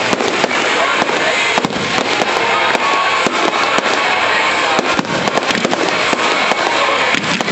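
Aerial fireworks display: many shells bursting in quick, irregular succession, sharp bangs and crackles over a continuous hiss with no pause.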